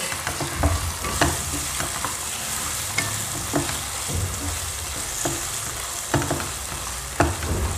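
Boiled mutton pieces frying in hot oil with crushed garlic and ginger in a non-stick kadhai, sizzling steadily while a wooden spatula stirs them, with irregular scrapes and knocks of the spatula against the pan.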